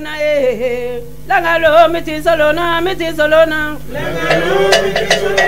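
Men's voices chanting a traditional song in long, wavering notes; about four seconds in more voices join and sharp taps come in.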